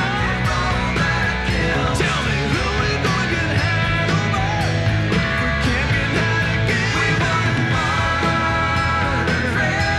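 Rock band playing an up-tempo song with electric guitars, bass and a steady drum beat, under sung vocals.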